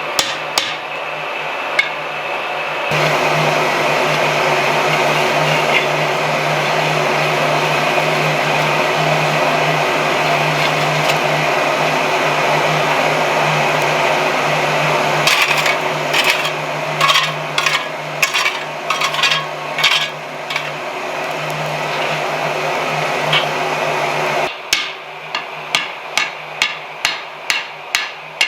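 Hammer blows on a Peter Wright anvil while forging hot steel. There are a few strikes at the start and a scattered series in the middle, then a steady run of about two strikes a second near the end. Under most of it a coal forge's blower runs with a steady hum and rush of air, which stops just before the final run of strikes.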